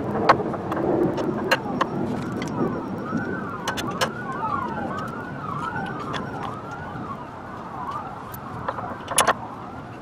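An emergency-vehicle siren sweeping quickly up and down, about two sweeps a second, from about two seconds in, over scattered sharp clicks and taps with a louder double click near the end.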